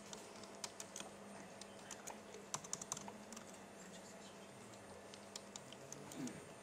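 Computer keyboard keys tapped in quick runs as a search phrase is typed, faint clicks that come thickest in the first half and thin out to a few near the end.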